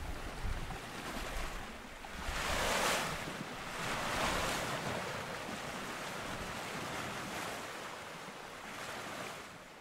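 Wind and sea water rushing past a small sailboat under way, a steady hiss that swells louder a few times as waves wash along the hull, with wind buffeting the microphone.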